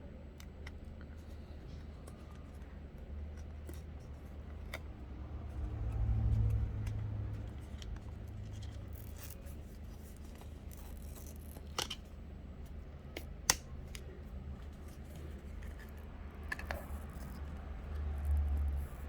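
Small handling sounds from work on a smartphone back cover: scattered light clicks and taps, faint rustling, and a couple of low bumps, as old adhesive is removed. The sharpest click comes about two-thirds of the way through.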